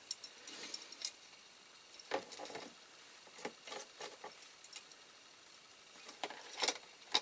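Faint scattered clicks and light clinks of small die-cast metal model-car parts being handled, freshly stripped of paint in caustic soda.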